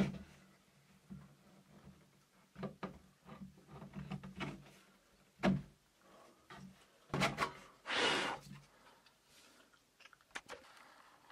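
Fret saw cutting slots in an ebony fretboard held in a wooden slotting jig: irregular short saw strokes and knocks, with a longer, stronger stroke a little before eight seconds.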